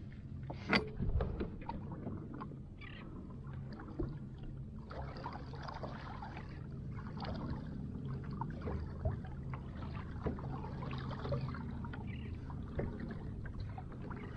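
Small waves lapping and splashing against the plastic hull of an Old Town Predator fishing kayak, with scattered light knocks and clicks from the boat and its gear, over a steady low rumble. A sharper knock comes about a second in.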